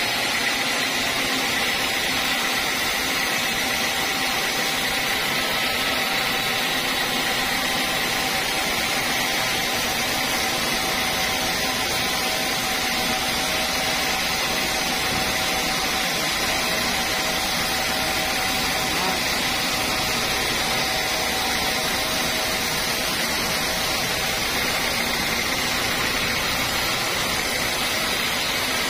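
Band sawmill running and cutting lengthwise through a teak beam: a steady noisy whir with a steady high whine over it.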